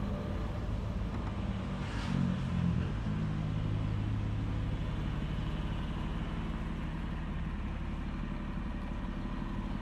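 An engine idling nearby: a steady low hum, swelling briefly about two seconds in.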